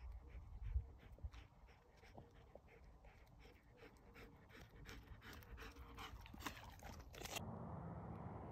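Great Pyrenees dog panting, faint, in quick rhythmic breaths of about three to four a second. Near the end the breaths give way to a steady rush of noise.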